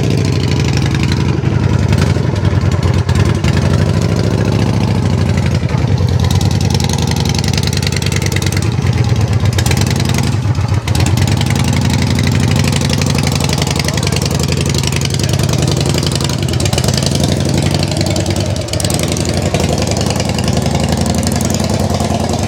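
An engine running steadily, loud and close, with a low, even pulsing throughout.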